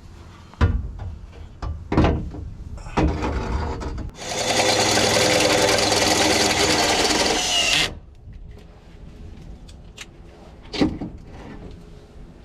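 A power tool runs steadily for about four seconds, from about four seconds in. A few sharp metal knocks come before it and one comes near the end.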